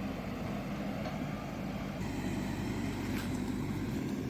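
Diesel engine of a JCB excavator running steadily at a constant speed.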